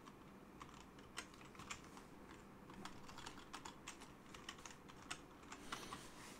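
Faint typing on a computer keyboard: short, irregular keystrokes, coming more often in the second half.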